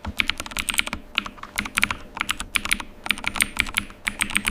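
Rapid, irregular clicking, several clicks a second, like keys being typed on a keyboard. It starts and stops abruptly.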